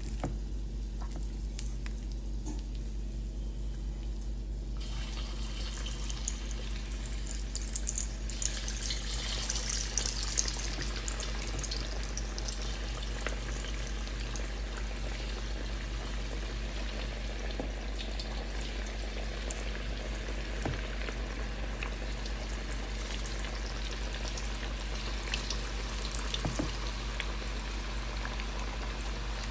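Marinated, cornflour-coated chicken pieces deep-frying in hot oil in a wok: a sizzling, bubbling hiss that starts about five seconds in and flares up strongest around eight to ten seconds as the first pieces go in. The sizzle then carries on steadily, with a fresh flare near the end as more pieces are dropped in.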